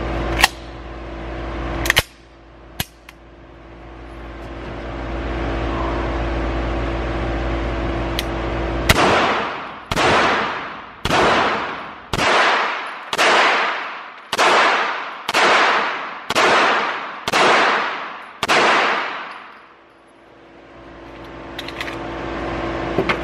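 Beretta M9A3 9mm pistol fired ten times at about one shot a second, each shot echoing and fading in the indoor range, until the magazine runs empty and the slide locks back. Before the string come a few sharp metallic clicks as the pistol is loaded.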